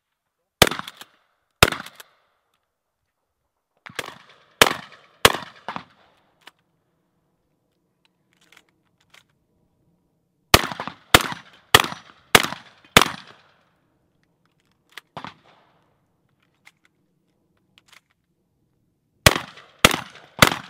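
Shotgun fire in fast strings of shots, about 0.6 s apart: two shots, then three, then five in a row, a single shot, and three more near the end, each with a short echo.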